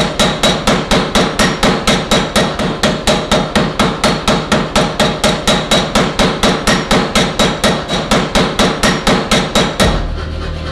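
Hammer blows forging a red-hot stainless steel spoon bowl on an anvil: a steady, fast rhythm of about three to four ringing strikes a second. The hammering stops about ten seconds in.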